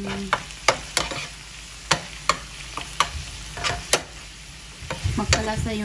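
A metal spoon stirring food in a nonstick frying pan: irregular scrapes and clinks against the pan about every half second, over a steady frying sizzle.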